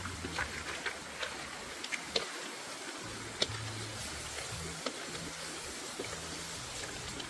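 Crabs frying in a wok with a steady sizzle, and scattered light clicks of a wooden spatula and crab shells against the pan as they are stirred.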